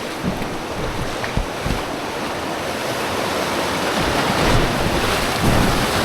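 Rushing whitewater of a river around a raft, a steady rush that grows louder about four seconds in, with wind buffeting the microphone.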